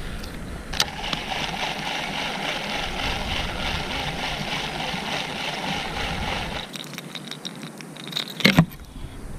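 Baitcasting reel being cranked to retrieve the line: a steady, rhythmic gear whir for about six seconds that then stops. A short, loud clatter follows near the end.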